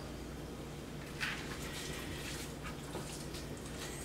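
Kitchen shears cutting through a red snapper's bones, giving a brief crunching snip about a second in and a few faint clicks afterwards, over a steady low hum.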